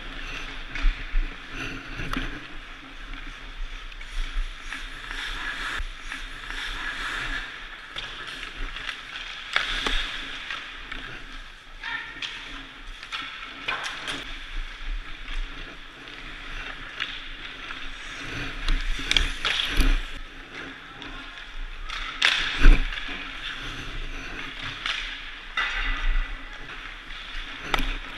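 Ice hockey practice sounds from a goalie's point of view: skate blades scraping the ice, with pucks and sticks knocking sharply and irregularly against sticks, boards and goalie pads, the loudest knock about three-quarters of the way through. A steady low hum runs underneath.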